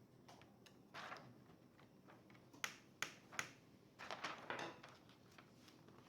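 Hands handling small hardware and packaging: three sharp small clicks in a row in the middle, with short rustles just before and after.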